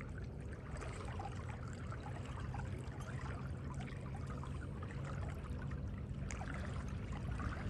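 Water lapping and trickling along a canoe's hull as it trolls slowly, over a steady low hum from the canoe's motor.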